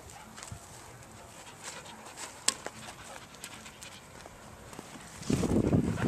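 Dogs moving about close to the microphone: scattered small clicks and footsteps on a dirt trail, then about five seconds in a loud, close burst of panting and rustling as a dog comes right up against the microphone.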